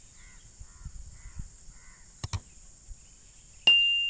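A crow cawing four times, about half a second apart. Then two sharp clicks and a loud bell-like ding that rings on and fades, the sound effect of a subscribe-button animation.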